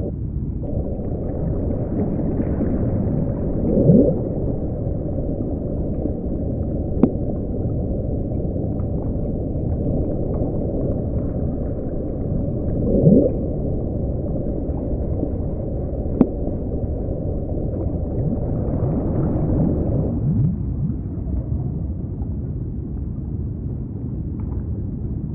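Underwater ocean sound: a steady low rumble with short whale calls that glide upward in pitch, one about 4 seconds in, another near 13 seconds and a cluster near 20 seconds. Two sharp clicks come in between.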